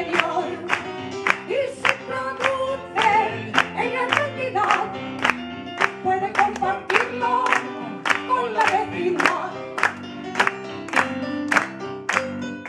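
A woman singing a melodic, gliding vocal line over instrumental accompaniment, with sharp percussive beats about twice a second.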